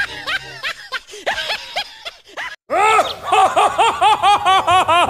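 A comic laughter sound effect: short high-pitched laughs, then after a brief cut about two and a half seconds in, a louder, rapid run of 'ha-ha-ha' syllables, each rising and falling in pitch.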